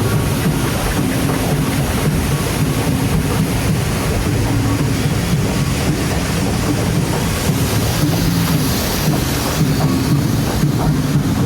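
Rapids-ride raft moving through rushing water: a steady, loud wash of water over a low rumble, with wind buffeting the microphone.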